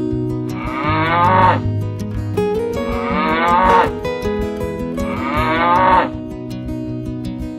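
A cow mooing three times, each call about a second long and dropping in pitch at its end, over acoustic guitar music.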